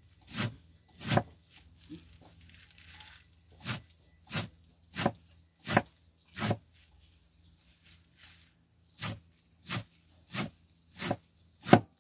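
Sharp kitchen knife chopping raw vegetables, about a dozen single cuts at a slow, even pace of roughly one every two-thirds of a second, with a pause in the middle.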